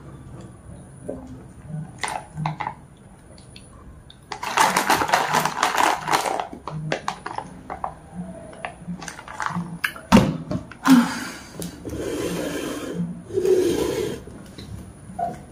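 Drink being sucked through a plastic straw from a plastic cup: three long slurping, gurgling draws, with small clicks between them and a sharp knock around ten seconds in.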